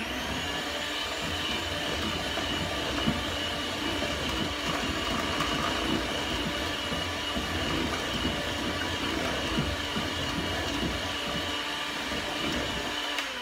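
Electric hand mixer running at a steady speed, its beaters whisking an egg-yolk mixture in a stainless steel bowl. It is switched off at the very end and winds down.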